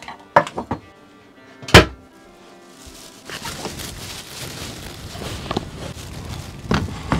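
A few light knocks, then a sharp thump about two seconds in as a door in the camper shuts, over background music. After that comes outdoor rustling with a couple of clicks near the end as tableware is set down on a folding table.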